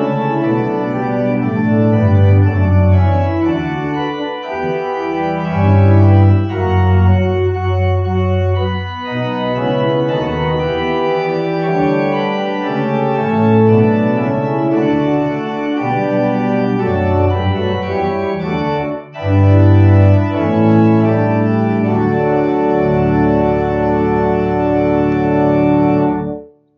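Church organ playing hymn music in full, sustained chords with a strong bass line, then stopping abruptly near the end.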